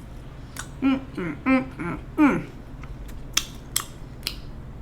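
Close-miked eating: a few short hummed vocal sounds in the first half, then several sharp wet mouth clicks and smacks of chewing near the end.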